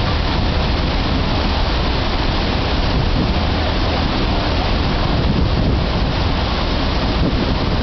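Steady rushing noise of a boat under way: wind and water with a constant low engine rumble.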